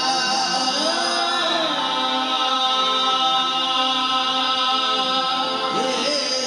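Qawwali: men's voices singing with sliding melodic runs over the steady held chords of harmoniums.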